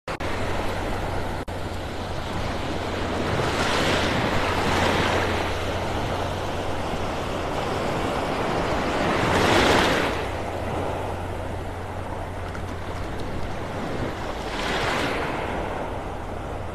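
Small Gulf of Mexico waves breaking and washing up the sand at the water's edge, surging about every five seconds, loudest about ten seconds in. A steady low rumble of wind on the microphone runs underneath.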